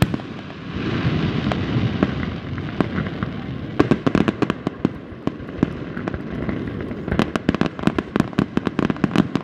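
Fireworks going off with many sharp crackling pops and bangs, bunched in dense clusters about four seconds in and again near the end, after a hissing rush in the first couple of seconds.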